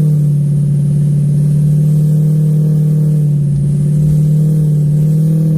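Diesel pickup truck engine pulling steadily under load in second gear up a snowy trail, a constant loud drone with no change in pitch.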